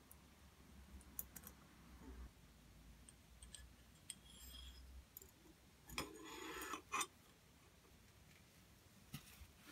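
Quiet handling of grease gun parts: a few faint clicks, then about six seconds in, a scraping metal rattle lasting about a second, starting and ending with a sharp click, as the steel plunger rod slides into the grease gun barrel.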